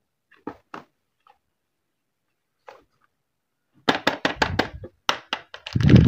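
Wrapped and boxed soap bars being handled. A few light taps come first, then from about four seconds in a quick run of crinkly wrapper rustles and knocks, with a heavier thump near the end.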